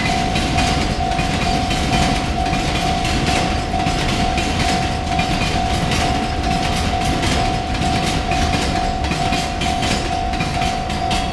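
A freight train's wagons rolling past a level crossing, wheels clattering over the rail joints, while the crossing's warning bell rings steadily with an even pulse.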